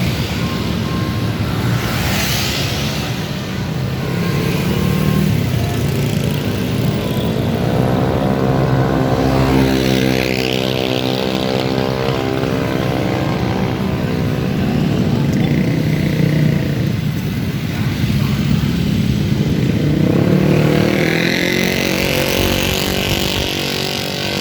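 Road traffic passing close by, with the engine of a heavy vehicle going by, its pitch bending, about eight to twelve seconds in, and another vehicle passing near the end.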